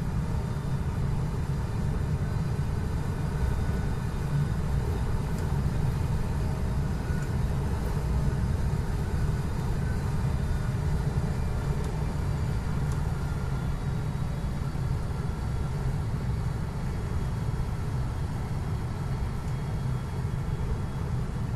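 Steady low rumble of a heavy truck's engine and tyres on a wet highway, heard inside the cab while cruising.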